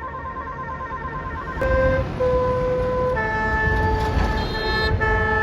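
Multi-tone Basuri telolet bus horns playing a tune: a fast warbling run of notes at first, then, about a second and a half in, louder held notes and chords with a short break near the end, over a low rumble.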